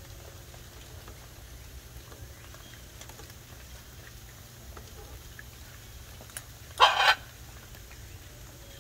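Hybrid macaw giving one short, loud, harsh squawk about seven seconds in, over a faint steady background.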